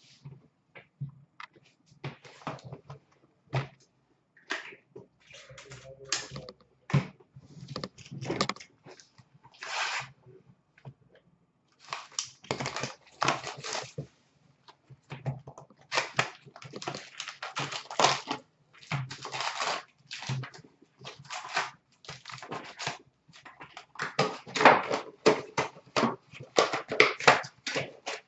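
Upper Deck hockey card packs being torn open and the cards shuffled and handled: irregular crinkling and rustling of wrappers with quick flicks and taps of card stock, thickest and loudest near the end.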